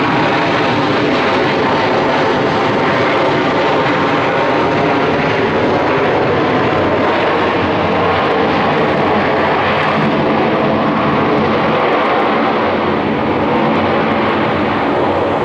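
Airliner jet engines running with a loud, steady noise that holds throughout and eases slightly near the end.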